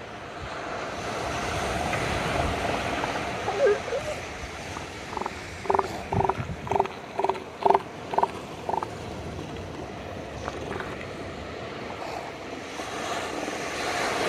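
A northern elephant seal calling in a run of about eight short, pulsed calls, roughly two a second, over a steady wash of surf.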